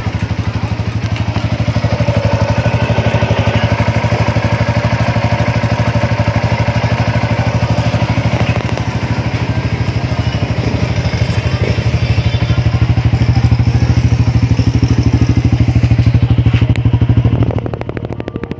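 Yamaha Sniper 150's single-cylinder four-stroke engine running at idle through a newly fitted Mody5 aftermarket power-pipe exhaust, a steady fast-pulsing exhaust note. It drops in level near the end.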